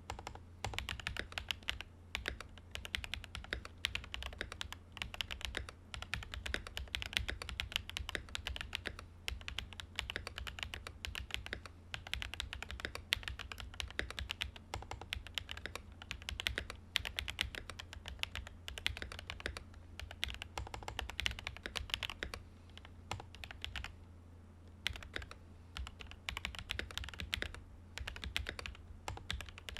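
Fast continuous typing on a Command 65 prototype mechanical keyboard fitted with Sotc switches, a POM plate and Domikey Vintage keycaps: a dense stream of key clacks that pauses briefly about 23 seconds in. A steady low hum runs underneath.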